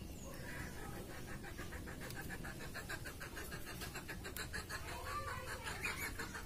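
Beetroot luchi frying in hot oil in an iron karai over a wood fire, with a fast, dense crackling sizzle. A short call-like sound comes about five seconds in.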